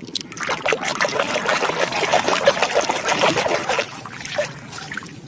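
Water splashing and trickling as a muddy toy animal is washed in a container of clean water; the splashing eases off a little over a second before the end.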